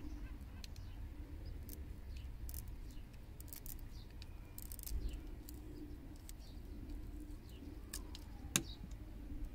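Thin blade scoring the plastic jacket of a coaxial cable: a scatter of small clicks and scrapes, with one sharper click near the end.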